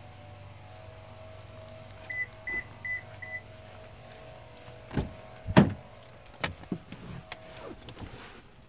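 Four short high beeps in quick succession about two seconds in, then a run of sharp knocks and clicks of a pickup truck's door being opened and someone climbing into the cab, the loudest about halfway through.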